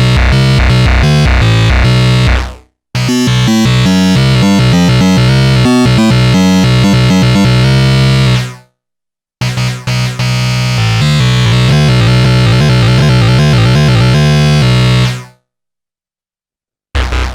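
Arturia MicroBrute analog monophonic synthesizer playing a harsh lead patch: three loud phrases of quick notes, each fading out into a short silence, the last phrase starting just before the end.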